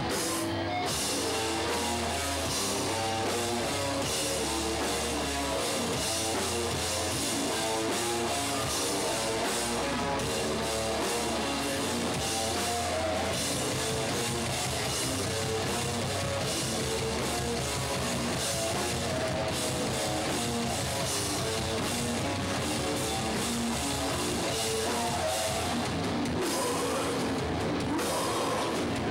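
Hardcore punk band playing live: drums and guitar keep going without a break.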